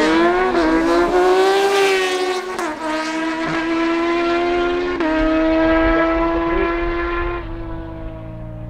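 Two motorcycles accelerating hard at full throttle on a drag-race run, engines revving high. The pitch climbs and drops sharply at an upshift about two and a half seconds in and another about five seconds in. The sound fades as the bikes pull away near the end.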